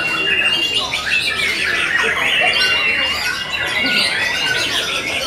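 Several caged white-rumped shamas (murai batu) singing at once, a dense, unbroken chorus of clear whistles, rapid trills and harsh squawking notes overlapping.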